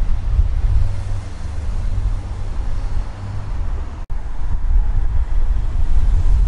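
Wind buffeting the camera's microphone, a heavy low rumble over the noise of street traffic. It breaks off for an instant about four seconds in.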